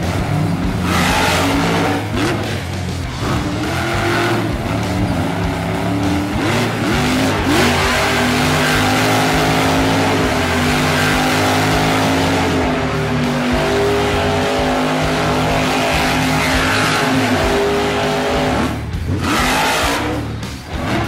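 Background music over an RC monster truck's electric motor whining up and down in pitch as it revs, with its tyres skidding and scrabbling on dirt and gravel.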